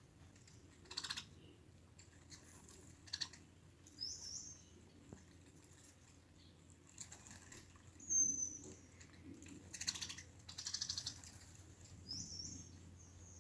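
Brown-headed cowbirds calling: a few short, high, rising whistles and several brief dry chattering rattles.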